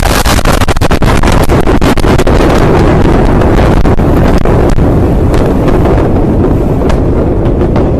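Sustained roar and rumble from the aftermath of the huge explosion in Lebanon, loud enough to overload the microphone, with many sharp crackles through it, easing slightly near the end.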